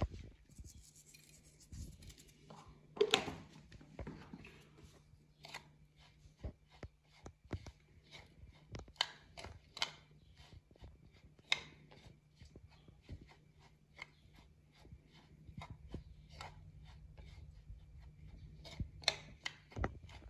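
Plastic spoon stirring and scraping dry seasoned breadcrumbs on a paper plate: irregular light scrapes and ticks, with a faint steady low hum underneath.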